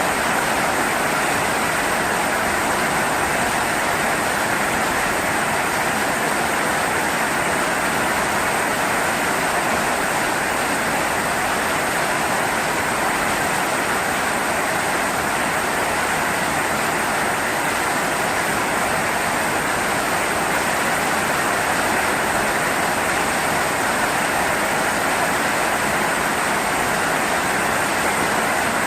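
Steady heavy rain falling, an even, unbroken hiss with no thunder.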